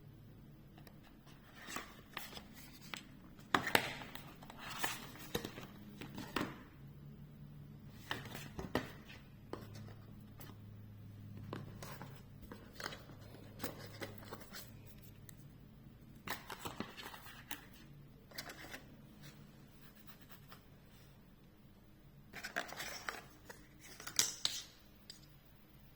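Packaging being opened and handled: scattered taps, clicks, scrapes and rustles, with the busiest stretches about four seconds in and again near the end. A faint steady low hum runs underneath.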